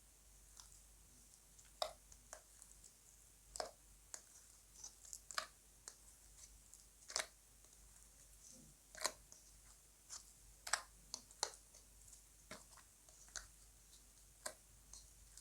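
Slime being mixed and pressed by hand, giving faint, irregular sticky clicks and small pops, one or two a second, some in quick pairs.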